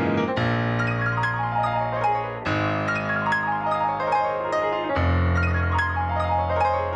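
Solo piano played on a digital stage piano: fast runs of notes falling down the keyboard over held deep bass notes, with a new bass note coming in near the start, about two and a half seconds in, and again about five seconds in.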